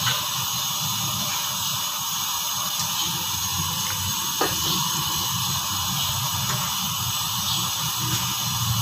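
Steady hiss from a steel biryani pot cooking on the stove as soft par-boiled rice is layered in, with one faint spoon knock against the pot about four and a half seconds in.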